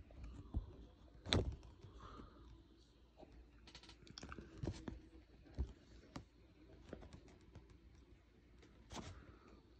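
Faint handling noises: scattered light clicks and taps, the sharpest about a second and a half in.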